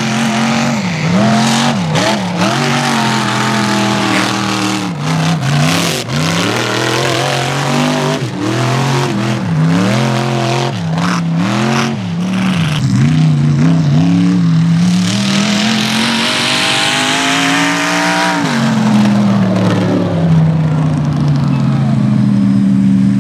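Mega truck engine revving up and down over and over under load on the dirt course. About fifteen seconds in it climbs in pitch in one long rise, then falls away.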